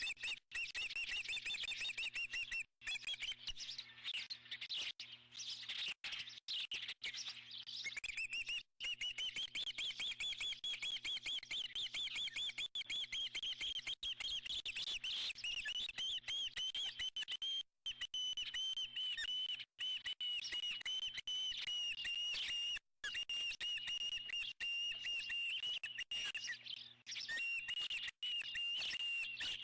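Bald eagles at the nest chirping, a fast, near-unbroken run of high-pitched chirps that settles to a steadier pitch in the second half.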